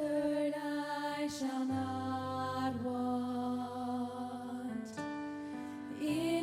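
Vocal ensemble singing a slow worship song in harmony, holding long notes that change chord every second or two, with a few soft sung consonants.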